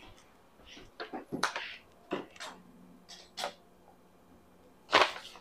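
Sheet of paper handled close to the microphone: a few short rustles and clicks, scattered irregularly, over a faint steady hum.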